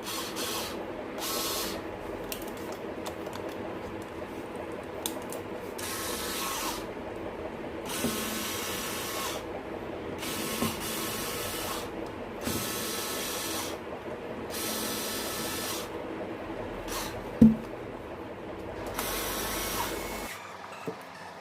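Hand tools at work taking apart a Canon EF 24-105mm f/4L IS II USM lens. There are repeated short spells of fast, ratchet-like clicking from turning screws, with a few dull knocks in between; the loudest knock comes near the end.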